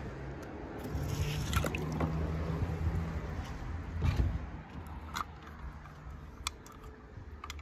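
Low rumble of handling noise on the microphone, with a handful of light clicks and taps as a small die-cast toy truck is picked up and handled.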